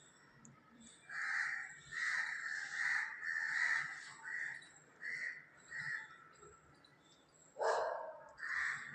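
Parrot squawking: a run of short, harsh calls in quick succession, then a lower, rougher call and one more squawk near the end.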